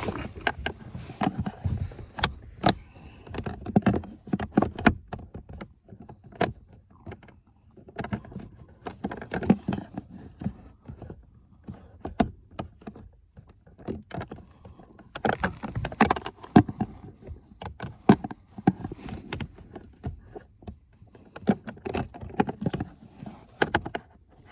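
Irregular plastic clicks, knocks and rubbing as a cabin air filter and its cover are pushed and wiggled into place, the piece not seating in its groove or locking.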